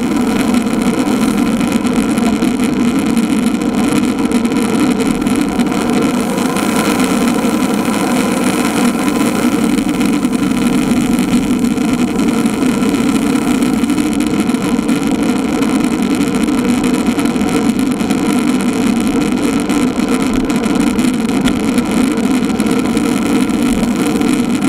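Steady, unchanging drone of wind and road noise from riding a road bike, with no strokes or changes.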